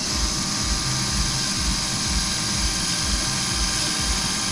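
Orthopaedic surgical power drill running steadily as it drills a screw hole through bone, under saline irrigation. It makes an even high whine with a low throb about three times a second.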